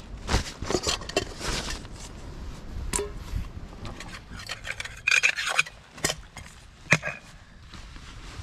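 Nylon tarp and rucksack fabric rustling and rubbing as a rucksack is unpacked and a tarp pulled out, with several sharp clicks in between, the loudest a little before the end.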